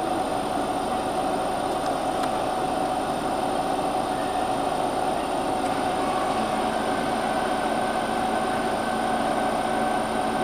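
The JU-01 homemade gas turbine engine of a turbine motorcycle starting up, a steady whine over rushing air. A lower hum joins about six seconds in.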